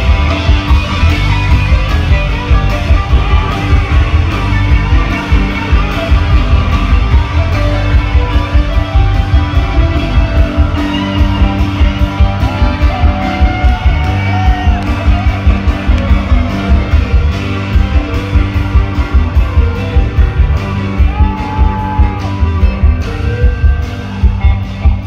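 A rock band playing live and loud: electric guitar over a fast, steady drumbeat.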